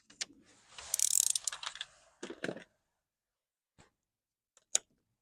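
A blade cutting through the paper backing of a vinyl decal: a scratchy rasp that peaks about a second in, followed by a few short clicks and a lone click near the end.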